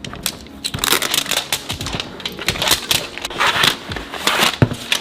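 Plastic and paper packaging crinkling and crackling as a surprise-egg toy's tab is peeled and the wrapping torn open, in a rapid irregular run of crackles.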